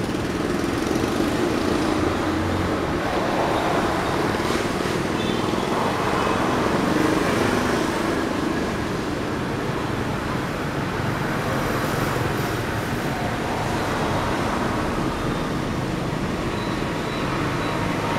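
Street traffic passing on a wet road: cars and motorbikes making a continuous wash of engine and tyre noise that swells and eases as vehicles go by.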